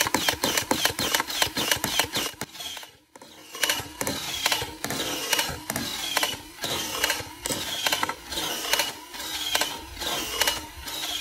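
Toy M249-style soft-bullet blaster firing on automatic: a rapid clatter of shots, several a second. The firing breaks off briefly about three seconds in, then carries on in repeated bursts.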